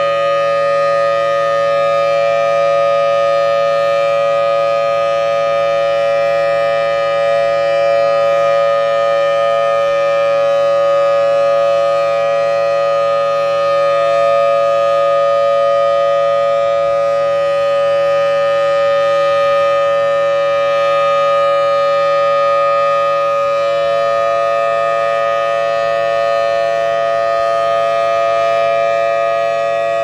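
Federal Signal Thunderbolt 1003 siren sounding a steady full-alert tone, holding one pitch and one level throughout. Its broken rotator leaves the horn fixed, so the sound does not swell and fade as it would when rotating, and its blower is wonky sounding.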